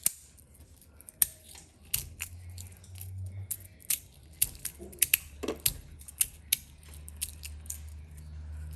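Metal magnetic fidget slider being slid and handled: a string of sharp, irregular metallic clicks and snaps. A faint low hum runs underneath from about two seconds in.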